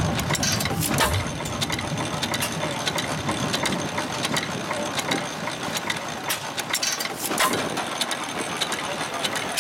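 4 HP Reeves antique stationary gas engine running with its flywheel belted to a variable-speed drive: a rapid, irregular mechanical clicking, with louder thumps about a second in and again about seven seconds in.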